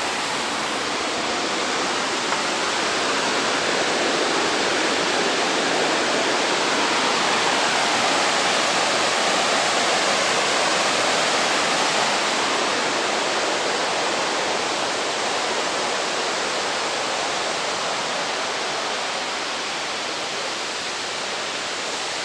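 Waterfall rushing: a steady, dense rush of falling water that swells slightly in the middle.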